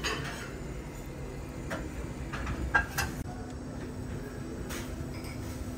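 Kitchen clatter: a few sharp knocks and clinks, the loudest about three seconds in, over a steady low hum.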